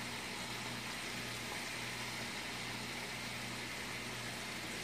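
Chicken wings deep-frying in a large pot of hot oil: a steady, even sizzling hiss, with a faint low hum underneath.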